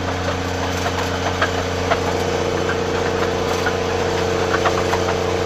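Snowcat engine running steadily, a constant low hum with scattered light clicks and rattles.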